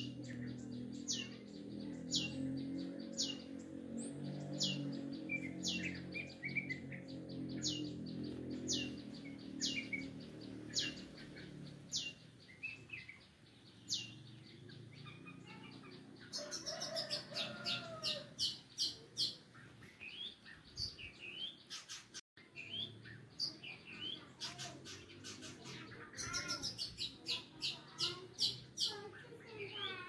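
Long-tailed shrike (cendet) singing: a string of sharp, high notes that each slur downward, about one a second at first. Twice, in the second half, the notes come in fast rapid runs mixed with lower warbled phrases.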